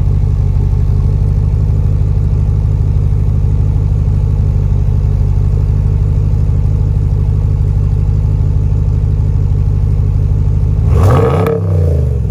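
2021 Ram 1500 Bighorn exhaust with the muffler deleted and the resonators kept, idling with a steady low rumble out of the dual tailpipes. About eleven seconds in, the engine is revved once, its pitch rising and falling, the loudest moment.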